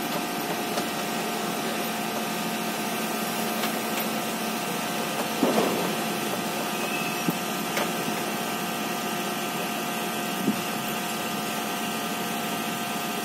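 Steady whir of an electric blower fan with a steady hum, and a few faint light taps.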